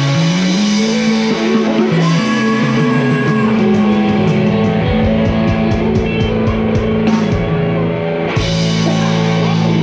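Live rock band playing an instrumental passage without vocals, electric guitar and bass over drums, building to the close of the song. A quick run of drum hits comes a little past halfway, then a cymbal crash near the end.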